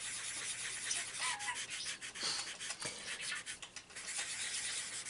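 Cotton pad rubbing soft pastel into drawing paper: a continuous scratchy, papery hiss that swells and dips with each stroke.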